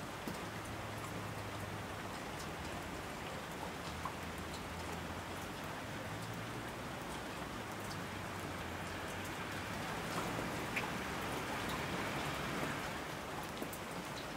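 Steady rain falling, an even hiss dotted with the ticks of single drops, swelling slightly about ten seconds in.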